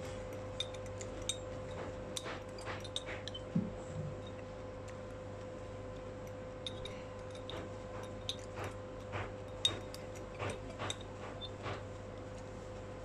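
Metal fork clinking and scraping against a plate in irregular short taps while someone eats, some taps ringing briefly. A steady low hum runs underneath.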